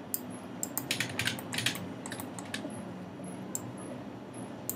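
Computer keyboard clicking: a quick run of keystrokes about a second in, then a few scattered single clicks, over a low steady room hum.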